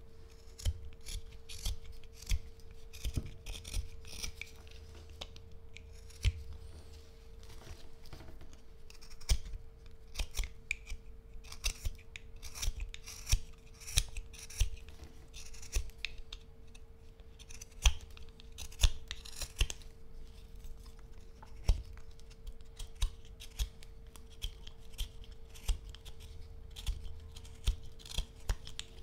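Carving knife paring chips off a stick of hard black locust (Robinia) wood: an irregular run of short, sharp slicing and scraping strokes, several a second.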